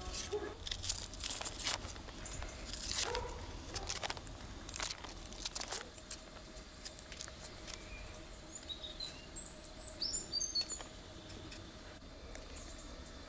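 Small kitchen knife scraping and cutting the skin off a raw potato in short strokes over the first half, then a small bird chirps several times high up near the end.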